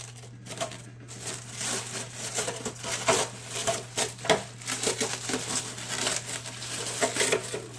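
Irregular crinkling and rustling of packaging, with light clicks and knocks from handling the RC truck.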